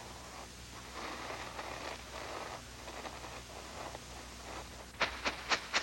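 Snow crunching and scraping as it is worked by hand: soft, irregular scrapes, then near the end a quick regular run of sharp crunching strokes, about four a second.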